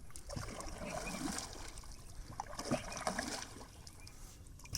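Lake water lapping and splashing irregularly against a small boat under way, over a steady low rumble.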